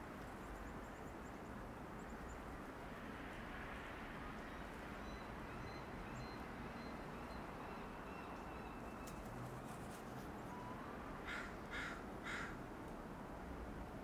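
A bird gives three short calls in quick succession, about half a second apart, near the end, over a steady hum of distant city noise.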